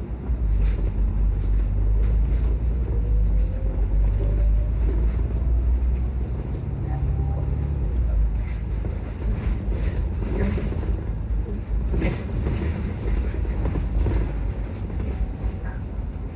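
Volvo double-decker bus heard from inside on the upper deck: a steady low engine and road rumble, with a whine rising in pitch a few seconds in. Short knocks and rattles come through in the second half.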